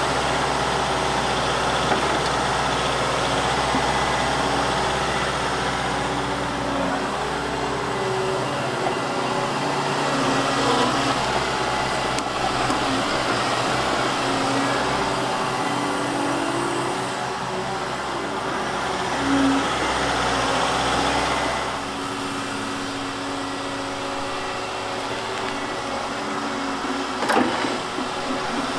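Volvo crawler excavator's diesel engine running as the machine works, with shifting tones from the engine and hydraulics. It eases off a little about two-thirds of the way through, and a sharp knock comes near the end.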